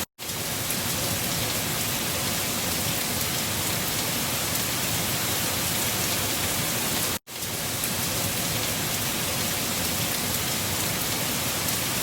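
Steady storm noise of wind and driven rain, an even hiss that cuts out to silence twice, just after the start and about seven seconds in, and fades straight back each time.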